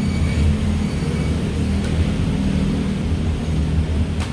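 Steady low hum of a running motor, with a single short click near the end.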